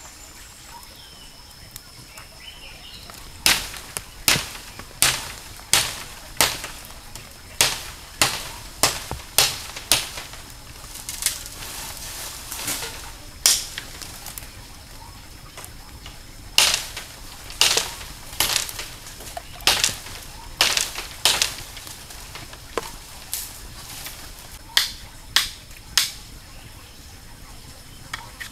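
A knife blade striking and cutting a green bamboo pole in sharp, separate strokes, about one or two a second in irregular runs, with a pause of a couple of seconds near the middle.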